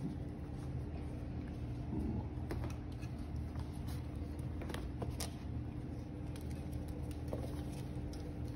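Morkie puppies' paws pattering and scuffling on newspaper and a blanket, with scattered light clicks, over a steady low hum.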